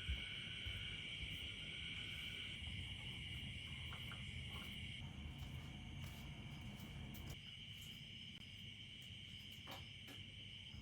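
A chorus of crickets keeps up a steady high trill, slightly quieter from about five seconds in.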